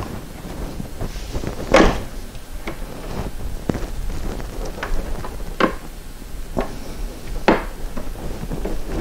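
Scattered sharp clicks and clanks of metal hose clamps and a hand tool being handled while the clamps are swapped onto coolant hoses; the loudest come about two seconds in and again near the end.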